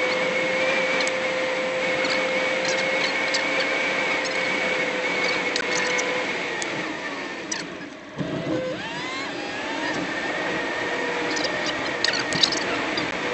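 Car driving, with steady road and engine noise heard from inside the cabin and scattered light ticks. The noise dips briefly about eight seconds in, then picks up again.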